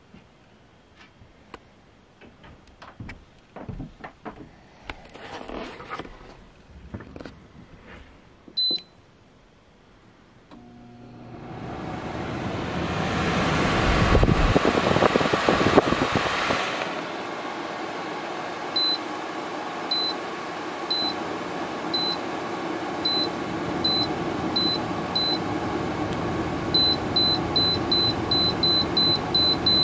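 Electrolux FFAD7033R1 dehumidifier starting up: its fan comes on about ten seconds in, rises to a loud rush of air for a few seconds, then runs steadily. Over the running unit, the control panel beeps with each button press: single beeps at first, then a quick string of beeps near the end. Before start-up there are faint handling clicks and one short beep.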